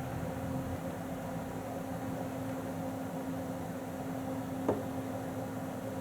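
A steady low hum over a faint hiss, with one short click about three quarters of the way through.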